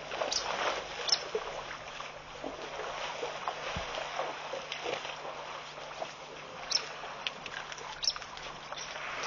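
African elephants wading in a shallow waterhole, with soft splashing and sloshing over a steady outdoor hiss. Scattered short, high chirps and clicks come through, and a faint low hum runs underneath.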